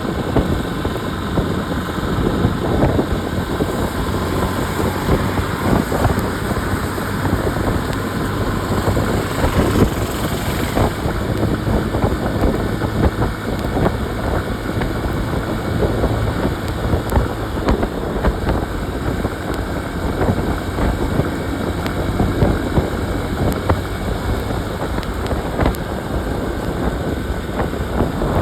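Motorcycle engine running steadily while riding, mixed with road noise and wind buffeting the phone's microphone.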